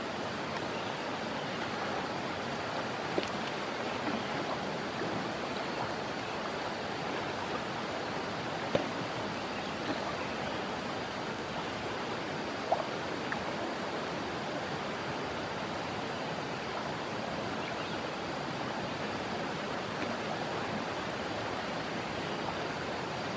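Steady rush of a flowing river, with a few brief sharp sounds standing out now and then.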